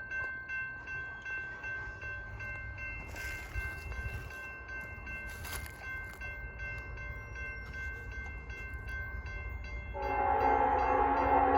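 Low rumble of an approaching locomotive under a steady ringing with a regular beat, typical of a grade-crossing bell. About ten seconds in, CSX 595's hybrid Nathan K5LLA five-chime air horn starts sounding a loud chord.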